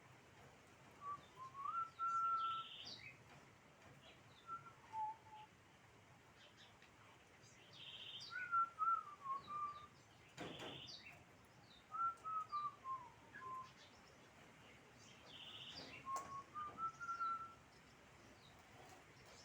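A bird singing short whistled phrases that rise and fall, repeated every few seconds, with a sharp knock about ten seconds in.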